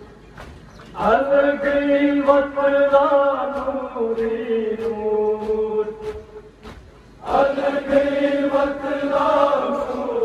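A noha, a Shia Muharram lament, chanted by men and amplified through horn loudspeakers. Two long sung lines come through, one starting about a second in and another about seven seconds in, over a steady rhythm of chest-beating slaps (matam).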